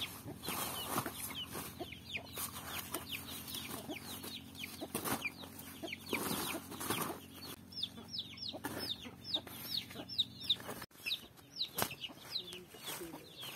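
Chickens calling nearby with short, high, falling cheeps repeated a few times a second, over the rustle of corn ears in their husks being dropped into a woven plastic sack.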